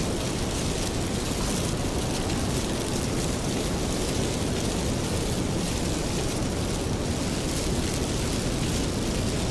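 Steady rain with a deep, even rumble, mixed with a wood fire burning in a fireplace.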